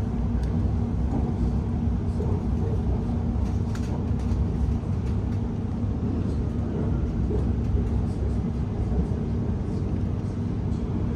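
Cabin noise of a Class 701 Aventra electric multiple unit running between stations: a steady low rumble of wheels on track with a steady hum and a few faint ticks.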